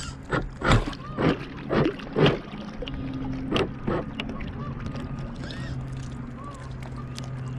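RC boat's motor running with a steady hum, while water slaps and splashes against the bow-mounted camera in a series of sharp bursts during the first four seconds.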